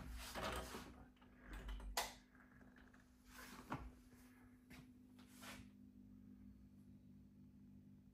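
Faint handling noises: rustling and a few sharp clicks in the first four seconds or so, the sharpest about two seconds in, over a faint steady hum.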